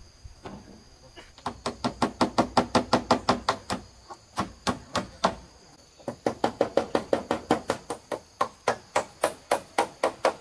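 Rapid, even strikes of a hand tool, about six a second, in two runs with a short pause in the middle, during house building.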